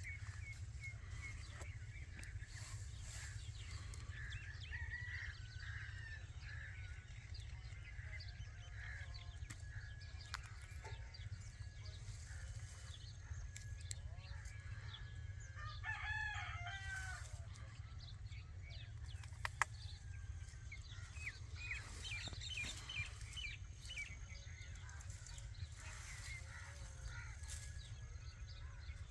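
Birds chirping and calling on and off, with a longer pitched call about midway, over a steady low hum.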